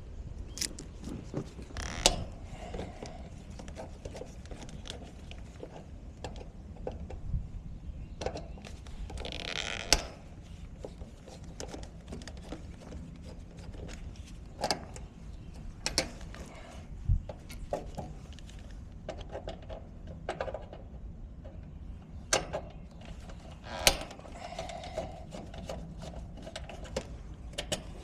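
Hand tools and metal parts being handled during furnace installation work: scattered clicks, knocks and clanks, with a brief hiss about ten seconds in.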